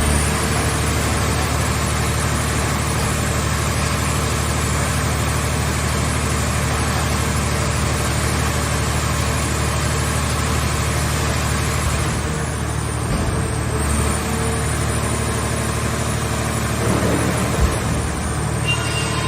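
Hydraulic scrap-car baler running, with a steady low engine-and-pump drone and a faint high whine that dips in pitch twice. A single knock comes near the end.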